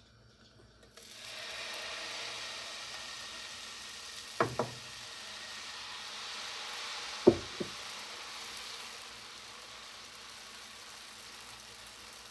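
Oat-flour batter sizzling in a hot, oiled nonstick frying pan, a steady hiss starting about a second in as it is poured. Two pairs of sharp knocks, about four and seven seconds in, from the ladle striking the pan as the batter is spread.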